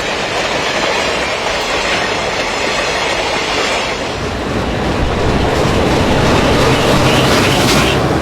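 Train running on the tracks, its wheels rattling over the rails, growing louder and heavier about halfway through.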